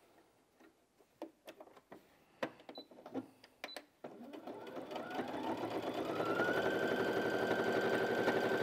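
A few light clicks and knocks as folded denim is set under the presser foot, then the Brother Innov-is A65 sewing machine starts sewing a straight stitch through four layers of denim. Its whine rises in pitch over about two seconds and then holds steady.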